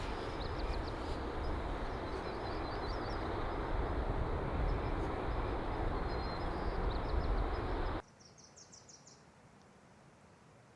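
Small birds chirping in short repeated phrases over a loud, steady rushing noise that is strongest in the low end. About eight seconds in it cuts off suddenly to much quieter air with a few more chirps.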